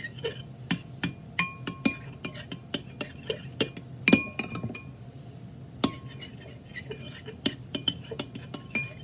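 A utensil stirring a glue-and-water slime mixture in a container, clinking against the sides in quick, irregular strikes. Several strikes ring briefly, and the loudest knock comes about four seconds in.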